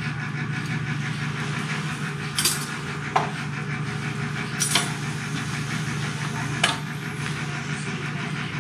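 Steady machine hum of the anesthesia ventilator, broken by four sharp clinks of steel surgical instruments being handled and set down, about two and a half, three, four and a half and six and a half seconds in.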